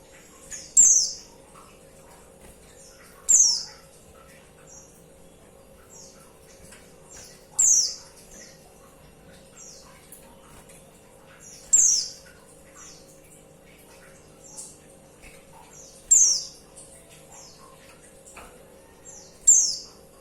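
Female white-eye (pleci) calling: a short, high, downward-sliding call repeated six times, about every four seconds, with fainter chirps between them.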